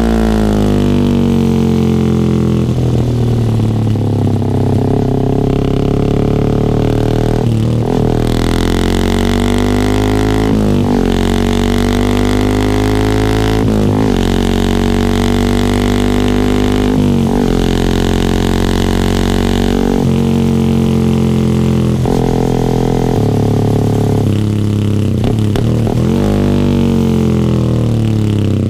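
Yamaha R15 V3's single-cylinder engine running through an R9 GPX-SS full-system exhaust, a steady droning note. The revs drop in the first couple of seconds, then hold fairly level, with a brief dip in pitch every three to four seconds.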